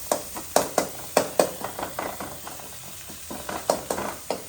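A spoon stirring and scraping in a pan of sizzling, frying curry base, with irregular sharp clinks of metal on the pan; the clinks thin out for a second or so in the middle.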